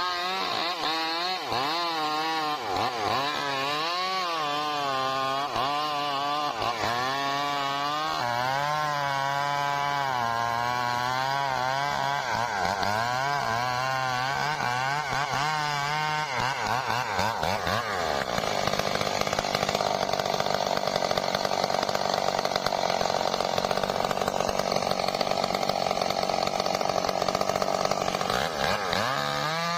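Stihl MS 382 chainsaw, a single-cylinder two-stroke, cutting trembesi (rain tree) wood. For more than half the time the engine speed rises and falls as the chain is loaded, then it runs high and steady and a little louder for about ten seconds before dropping near the end.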